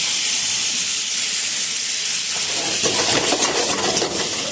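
Raw shrimp sizzling loudly in hot oil in a pan, a steady high hiss with crackling pops that grow thicker about halfway through.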